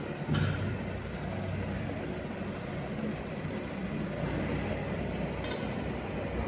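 Portable gas stove burner running steadily with a low roar under a wok of braising pork ribs. Two sharp metal clinks of cookware cut through it, one shortly after the start and the second as the lid is set onto the wok near the end.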